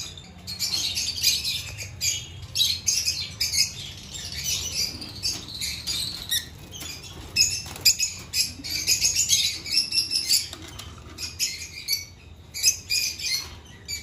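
Many caged lovebirds chattering at once, a dense stream of rapid, shrill chirps and squawks with no break.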